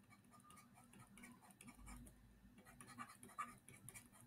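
Faint scratching and light tapping of a stylus writing on a tablet screen, in short irregular strokes.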